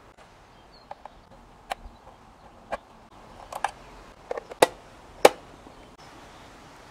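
Scattered sharp plastic clicks and taps from handling the hull and servo of a small plastic RC boat during reassembly, with two louder clicks about two-thirds of the way through.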